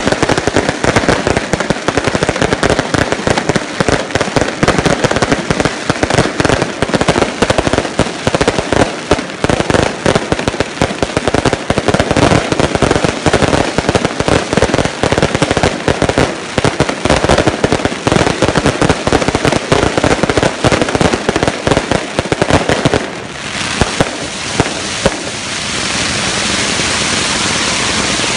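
Fireworks display: a dense, rapid barrage of overlapping bangs and crackles. About 23 seconds in the barrage gives way to a steady hissing rush, broken by a few single sharp bangs.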